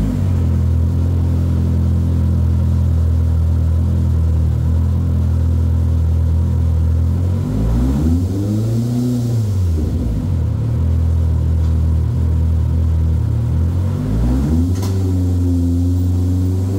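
Turbocharged 2.0-litre four-cylinder engine of a 2022 Polaris RZR Pro R with a straight-through exhaust, idling just after starting. About eight seconds in it revs up and drops back to idle once, and near the end, after a click, the pitch rises and holds as the machine shifts into high gear and begins to roll.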